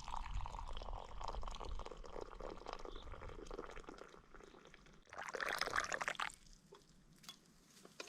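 Liquid being poured, with a gurgling patter that fades, then a brief louder burst of noise about five seconds in.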